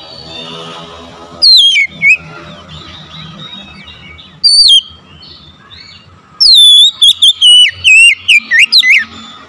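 Oriental magpie-robin singing loud, clear whistled phrases: a falling whistle about a second and a half in, a short phrase near the middle, then a quick run of varied whistled notes for the last few seconds.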